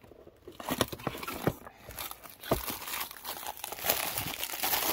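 Packaging crinkling and rustling as tissue paper and a bubble-wrap bag are handled and pulled out of a cardboard box. A few light knocks come in the first half, and the crinkling gets busier in the second half.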